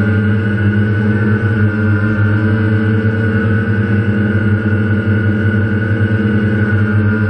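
DJI Phantom quadcopter's brushless motors and propellers running with a steady hum, heard up close from the GoPro Hero3 mounted on the drone. The pitch wavers slightly as the motors adjust speed.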